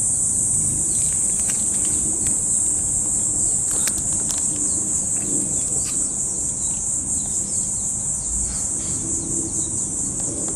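A steady, shrill chorus of summer insects, wavering slightly in level in the second half, with a few faint clicks about four seconds in.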